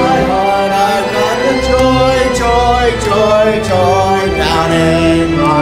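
Church music: singing with instrumental accompaniment, held bass notes under a sung melody.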